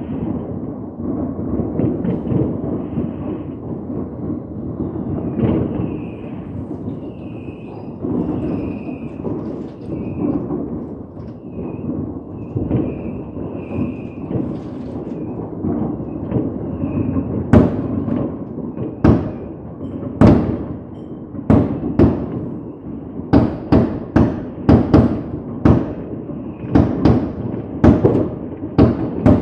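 Fireworks: a continuous rumble of many bursts going off together, then from a little past halfway a quick run of sharp bangs, about two a second.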